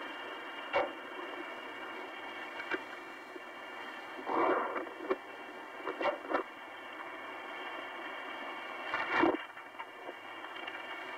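Apollo 10 spacecraft audio tape with no voices: a steady, thin, muffled hiss with a few faint steady tones in it. It is broken by short crackles and noisy bursts, the longest about halfway through and near the end.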